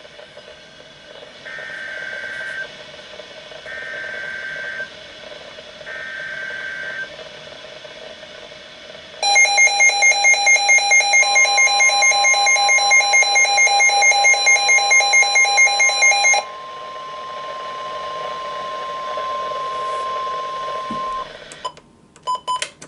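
Midland WR120 weather radio sounding an emergency alert. It opens with three short bursts of alert data tones about a second apart. Then the radio's loud alarm beeps rapidly, about four times a second, for some seven seconds over a steady long warning tone, which carries on alone and quieter for a few seconds after the beeping stops.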